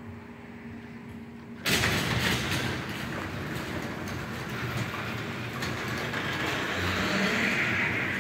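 Liftmaster 3575 3/4 HP garage door opener starting up with a sudden jump in loudness a little under two seconds in, then running steadily as it drives the sectional door along its track.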